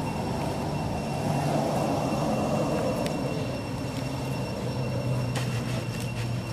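Steady low rumble of a running engine, its pitch settling slightly lower about four seconds in, with a faint steady high whine and a few faint clicks.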